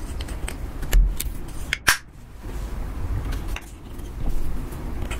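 A plastic spatula scraping eyeshadow out of a small plastic makeup compact: light scratchy clicks, one sharp click about two seconds in, over a low handling rumble.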